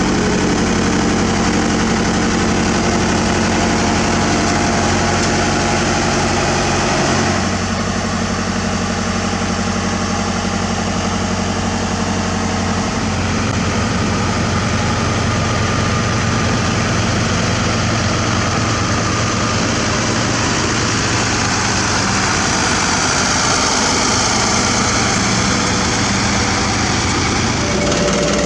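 Heavy diesel engines of asphalt-paving machinery running steadily. The engine note shifts about seven seconds in and again a few seconds later.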